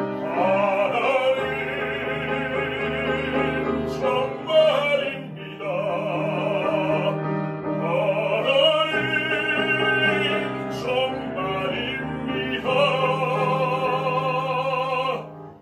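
A bass singing in Korean in operatic style with wide vibrato, accompanied by grand piano: the closing phrases of the song, in several long held notes that stop about fifteen seconds in.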